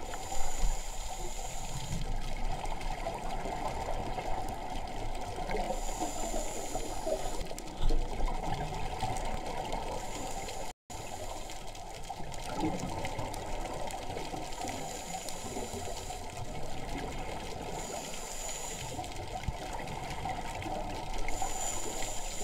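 Underwater ambience heard through an action camera's waterproof housing: a steady, muffled water rush, with a faint high hiss that comes and goes every few seconds. There are two dull knocks, about half a second in and again about eight seconds in, and the sound cuts out briefly about halfway.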